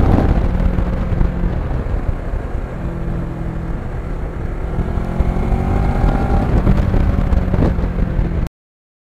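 Kawasaki Ninja 650R's parallel-twin engine running under way, with a heavy low rumble of wind on the microphone. The engine note climbs gently in the middle as the bike speeds up, and the sound cuts off abruptly near the end.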